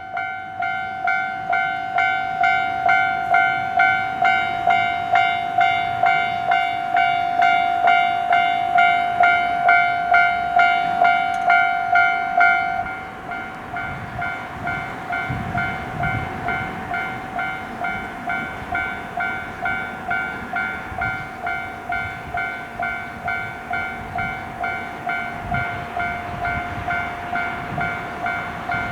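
Japanese level-crossing warning bell ringing its electronic "kan-kan" at about two strokes a second. Partway through, a steady tone under the strokes stops, and the bell carries on more quietly.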